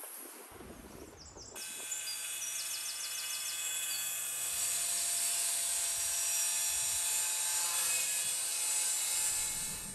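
Compact circular saw cutting through a thin fibreboard sheet. It starts about a second and a half in and then runs steadily, with a high-pitched whine over the rasp of the cut.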